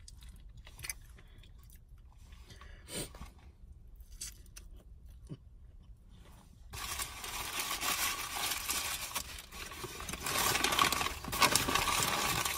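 Quiet chewing with a few small clicks, then from about seven seconds in a sudden, louder, irregular crinkling and rustling of a paper food wrapper being handled.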